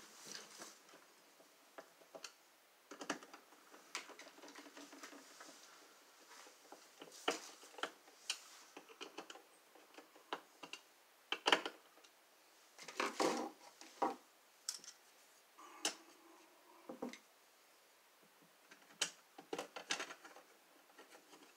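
Screwdriver working the screws of a wall outlet: irregular small clicks, taps and scrapes of the metal tip on screw heads and the plastic receptacle and cover plate, with a few louder knocks near the middle.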